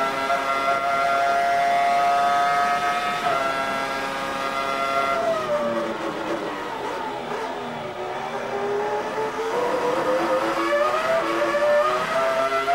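Onboard sound of a 2001 Prost AP04 Formula One car's Acer V10 at high revs. It holds a steady high note with an upshift about three seconds in. Then it drops in pitch through several downshifts under braking for a chicane, and rises again through upshifts as the car accelerates out.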